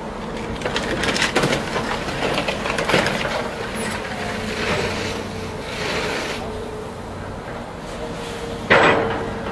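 An excavator's grapple crushing the roof and body of a Mercedes-Benz SLS AMG: sheet metal crunching, cracking and popping under the jaws, over a steady hum. A single loud bang comes near the end.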